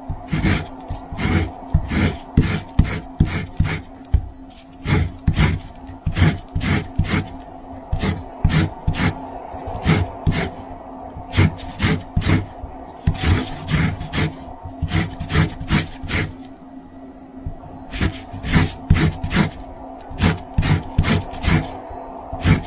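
Lemon peel rasping across a KitchenAid etched fine grater (zester) under heavy downward pressure: short scraping strokes, about two a second, with a few brief pauses.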